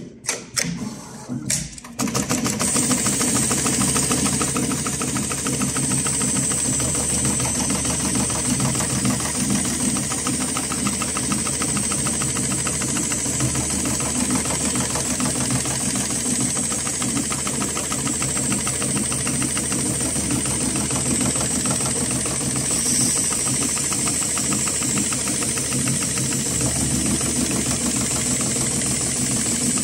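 HighTex 7273CNC-5020 automatic heavy-duty pattern sewing machine stitching polyester tie-down strap webbing. A few separate clicks come first, then about two seconds in the machine starts a fast, steady stitching run with a high hiss over it.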